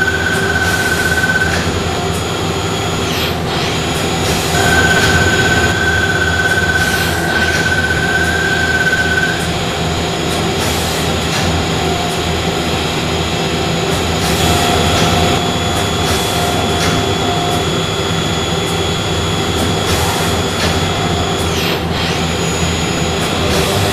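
Okuma Millac 852V CNC machining centre running a cut: a steady machine noise with high whining tones that stop and start several times.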